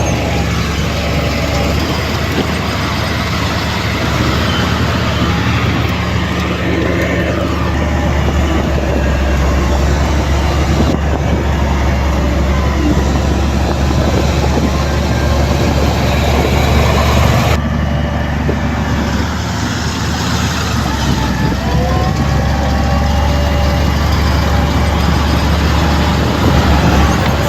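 Heavy diesel earthmoving machinery running with a steady, deep engine rumble, with abrupt shifts in the sound twice; in the last few seconds an engine note rises in pitch.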